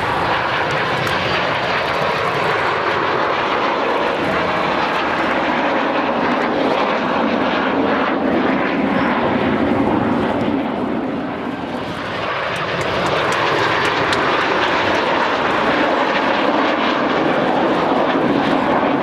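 Four Kawasaki T-4 jet trainers flying over in formation, their twin turbofan engines giving a steady jet rush that dips briefly just before the middle and then swells again.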